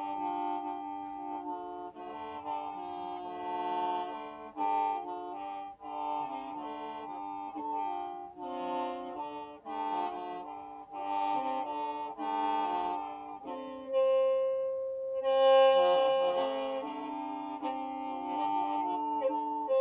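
Hmong qeej, a bamboo free-reed mouth organ, playing: several reed pipes sound together, with the notes shifting every second or so. About three-quarters of the way through it grows louder on a strong held note.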